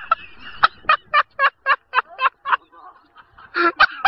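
A person laughing hard in a rapid run of short, high 'ha' bursts, about four a second and fading away, then a pause and a fresh burst of laughter near the end.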